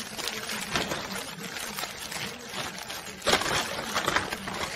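Brown paper bag rustling and crinkling as a cat moves around inside it and climbs out, the loudest crinkle about three and a half seconds in.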